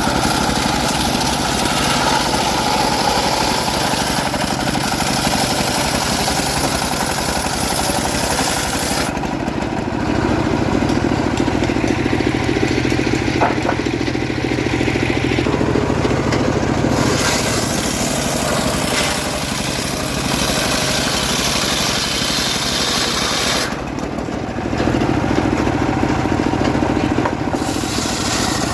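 Engine of a homemade circular sawmill running steadily while ripping a teak log. Twice, about a third of the way in and again near the end, the hiss fades and the engine note turns deeper for several seconds.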